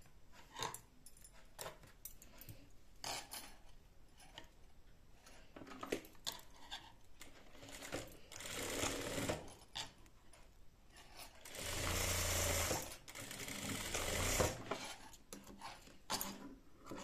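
Industrial single-needle sewing machine stitching in two short runs, the second longer and louder at about three seconds. Small clicks come from handling between the runs.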